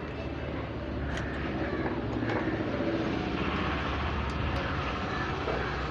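Steady low background rumble and hiss, swelling a little through the middle, with a few faint clicks.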